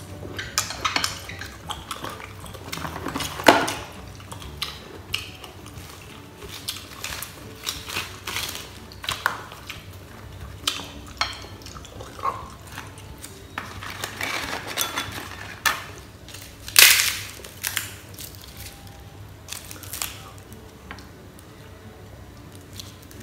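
Close-up eating sounds: chopsticks clicking against plates and bowls, and crunchy bites of toasted rice cracker (bánh tráng nướng). The clicks and crunches come irregularly, with two loud sharp crunches about 3.5 s and 17 s in.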